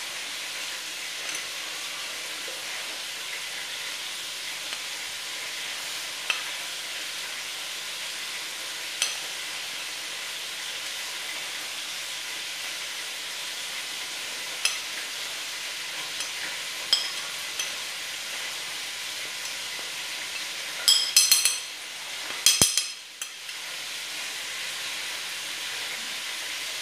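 Pieces of veal browning in butter in a pan, a steady sizzle. A metal spoon gives occasional sharp taps against a glass dish and a steel beaker, with a quick run of taps toward the end.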